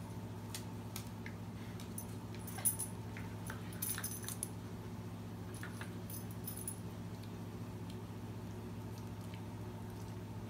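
Small dog's collar tags jingling in several short bursts as the dog rolls and paws about on a rug, the sharpest clink a little under three seconds in. A steady low hum runs underneath.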